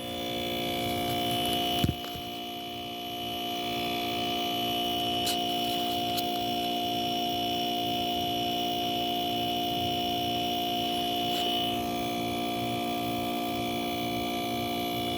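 Steady electrical mains hum with a faint high-pitched whine, and a single click about two seconds in.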